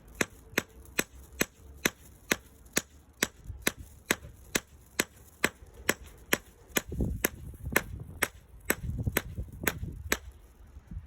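A hammer striking blackmatch fuse strands over and over in a steady rhythm, about two sharp blows a second, testing whether the black powder fuse ignites on impact.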